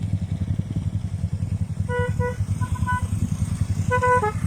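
An engine running steadily with a low, pulsing rumble. Short, high beeping toots sound over it, a few about two seconds in and another group near the end.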